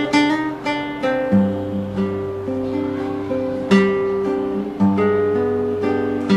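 Nylon-string classical guitar played solo: fingerpicked chords ringing over held bass notes, with a sharper strummed chord a little past the middle.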